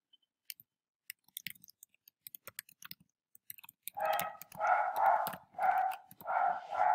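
Typing on a computer keyboard: scattered light key clicks. From about four seconds in, a run of six or seven louder, muffled sounds about half a second apart.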